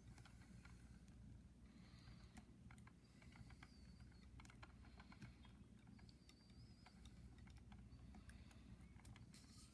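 Faint, irregular small clicks and ticks of a 1/6 scale Robocop action figure being handled and posed, its jointed plastic and die-cast parts moving, over a low steady hum.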